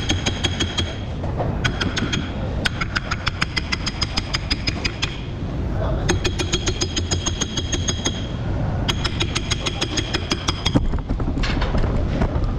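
Rapid, regular metallic clicking, about six clicks a second, in bursts of two to four seconds with short gaps, over a steady low rumble.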